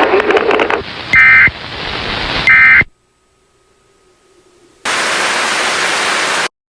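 Two short, loud, buzzy data bursts of Emergency Alert System end-of-message tones, about a second and a half apart, closing the alert. They are followed by a short stretch of near silence with a faint hum, then about a second and a half of white-noise static that cuts off abruptly.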